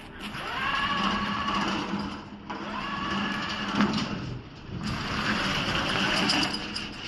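A remote-controlled tracked mower's motor speeding up in three bursts. Twice the pitch rises quickly and holds steady for about two seconds before dropping away; the third burst, near the end, is rougher and more noisy.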